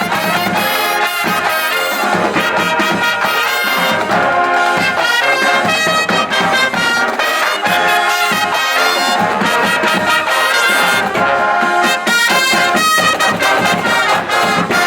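Marching band playing loudly, brass carrying the tune over a steady beat, up to the final cutoff of the piece at the very end.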